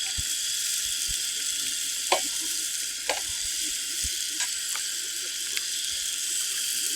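Battered Rocky Mountain whitefish frying in a pan over a fire: a steady sizzle with a few sharp pops.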